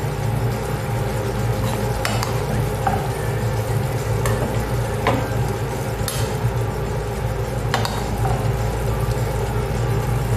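Green beans and squash sizzling in a frying pan while being stirred, with a utensil scraping and tapping against the pan every second or so. A steady low hum runs underneath.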